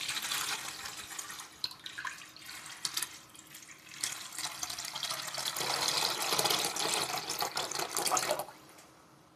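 Homemade wood-ash lye water poured in a stream from one stainless steel pot into another, splashing into the liquid below. It is being decanted off the residue that settled overnight. The pour thins to a trickle about two seconds in, picks up again about four seconds in, and stops suddenly near the end.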